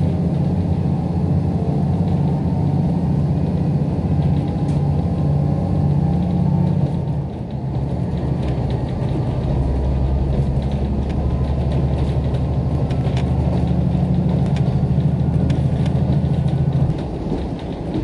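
Diesel railcar heard from inside the cabin while under way: a steady low engine drone with running noise. The engine note changes about seven seconds in, and the sound drops in level about a second before the end.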